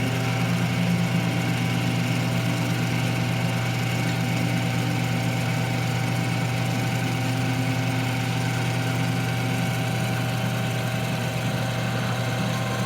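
Metal lathe running steadily with a low, even hum.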